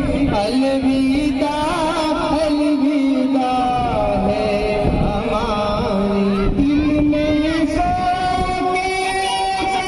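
A sung chant: one voice holding long notes with ornamented turns and glides between them, played loud over loudspeakers.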